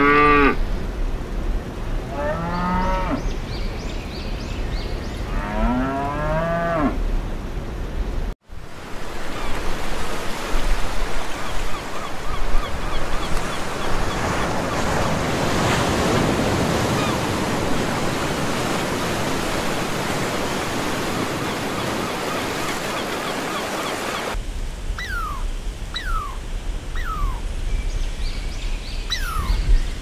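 Domestic cattle mooing three times, followed after a sudden cut by sea waves washing up on a sand beach, a steady rushing surf. Near the end, a squirrel gives short, falling chirps about once a second.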